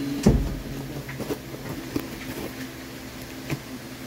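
Cardboard shipping box being handled: a heavy thump on the box about a third of a second in, then scattered light taps and scrapes, over a steady low hum.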